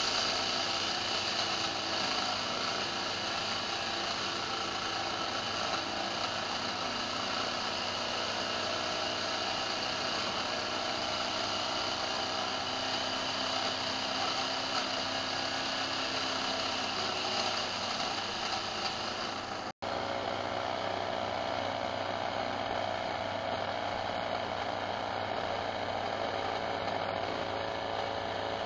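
Lathe running steadily while turning a piece of chalk. The sound drops out for an instant about two-thirds of the way through and resumes with a slightly different tone.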